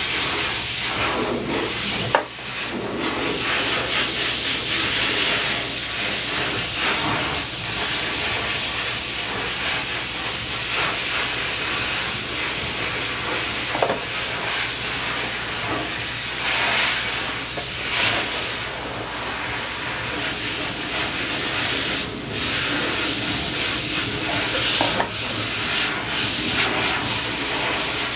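Steady rushing hiss with a low hum beneath it, broken by a few sharp clicks.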